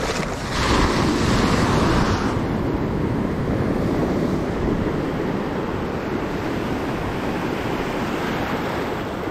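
Wind rumbling on the microphone over waves washing ashore, with a louder, hissier rush for the first couple of seconds.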